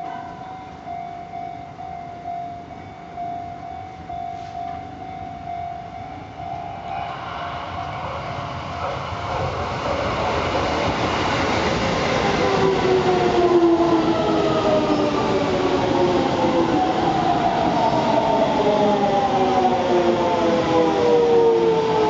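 Shin-Keisei 8800 series electric train arriving at a station, its running noise growing louder as it approaches. From about halfway on, the traction inverter whine falls in several gliding tones as the train brakes to a stop.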